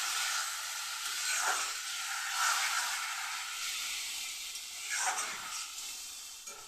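Spiced potato and squash mixture sizzling in oil in a pan, with two louder swishes about one and a half and five seconds in. The sizzle dies down near the end.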